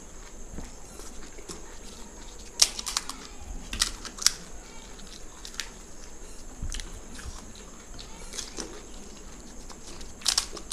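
Crisp fuchka (pani puri) shells cracking as they are broken open by hand and bitten, with chewing between. A scatter of sharp crunches comes through, the loudest a few seconds in.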